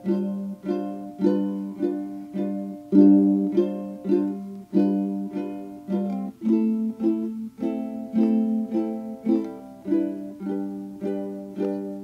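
Background music: a plucked-string instrument, ukulele-like, playing chords about twice a second in a steady rhythm, with a change of chord about halfway through.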